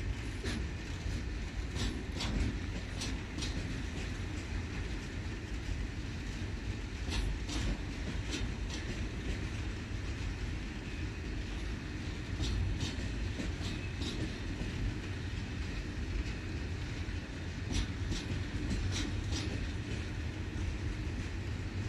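Freight train of flat wagons loaded with military vehicles rolling past slowly during shunting: a steady low rumble with irregular clicks and clacks from the wheels on the track.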